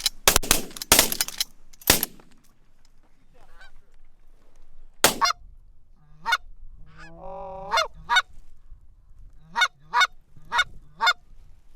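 Several shotgun shots in quick succession in the first two seconds. A series of short, sharp goose honks and clucks follows, with one longer drawn-out call in the middle.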